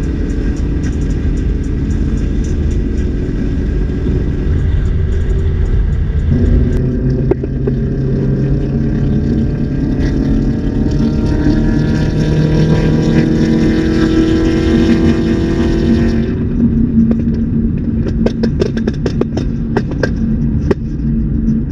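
Holden Commodore's V8 engine pulling under acceleration, its note rising steadily for about ten seconds. The revs then drop suddenly and a run of short pops follows.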